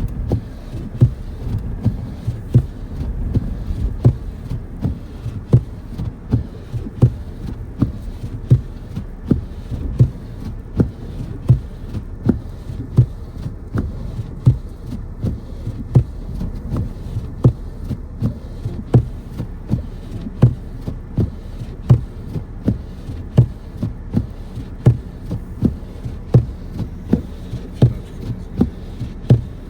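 Regular low thumps, about four every three seconds, over a steady low rumble.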